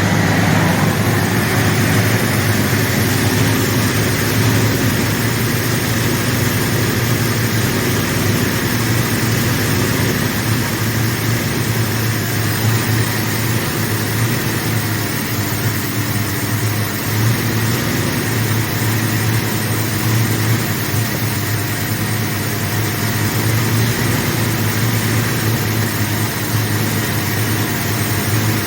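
Freshly rebuilt engine of a 1979 Ford F150 running steadily as it warms up. The engine has an idle problem that the owner cannot explain.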